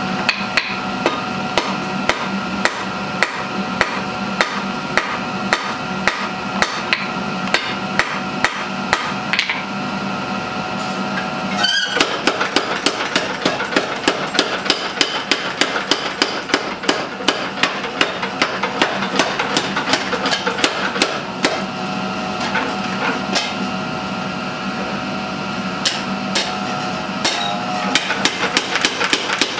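Hand hammer striking a red-hot white #1 steel knife blank on an anvil, about two blows a second. From about twelve seconds in, a power hammer pounds the hot steel in faster, closer-spaced blows.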